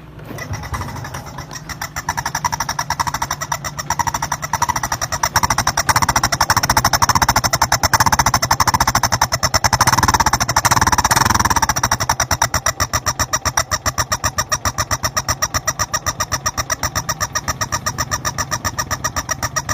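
Honda XRM 125 single-cylinder four-stroke engine starting up and being revved, loudest through the middle, then settling into a steady idle with an even, rapid exhaust pulse.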